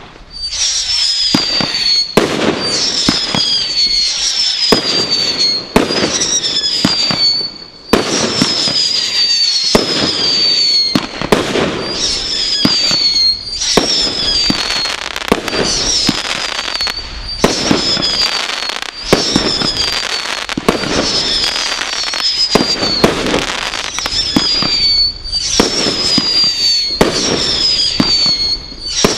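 Brothers Pyrotechnics Godfather Display Kit, a set of consumer firework cakes fused to fire in sequence, shooting one shot after another about once a second. Each shot goes off with a sharp crack and then a high whistle that slides slightly down in pitch.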